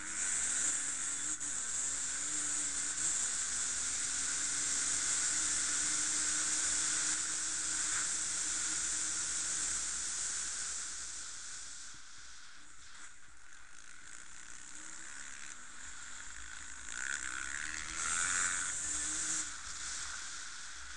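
Enduro motorcycle engine running at speed, with a strong rushing hiss of wind on the microphone. The engine eases off about halfway through and revs up again near the end.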